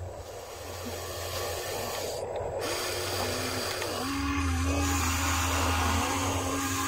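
Small electric gear motors of a radio-controlled toy excavator whining as the boom, bucket and turret move; the whine wavers in pitch a few seconds in, then holds steady as it grows louder.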